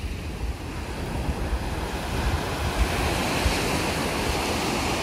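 Small waves breaking steadily on a sandy shore, with wind buffeting the microphone in low gusts.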